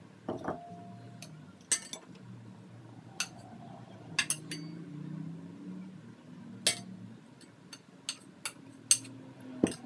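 Small metal mesh sieve clinking and tapping against a ceramic bowl as a flour mix is sifted through it: about ten sharp, irregular taps, one ringing briefly about half a second in.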